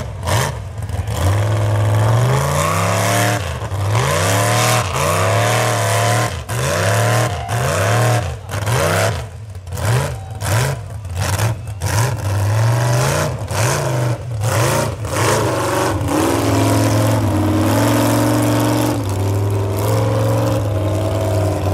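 Lifted pickup truck's engine revving hard and repeatedly while driving through mud, the pitch rising and falling about once a second, then settling into steadier running with a few stepped changes near the end.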